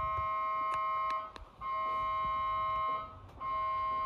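Aerial ropeway's departure warning signal: a loud electronic ring of several steady tones, sounding for about a second and a half, pausing briefly and repeating. A few sharp clicks come about a second in.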